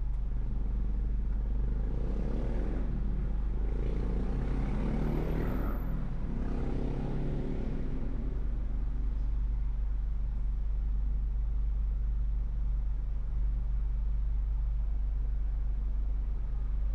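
Steady low rumble of a car driving along a city avenue, with a louder stretch of traffic noise swelling from about two seconds in and fading by about eight seconds, as of a vehicle passing.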